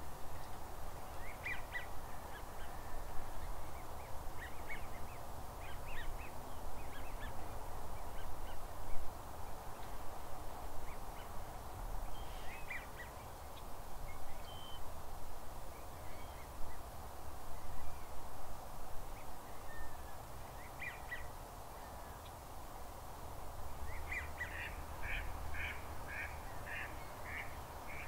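Ducks calling on a marsh: scattered short calls, then a quick run of repeated calls near the end, over a steady background hiss.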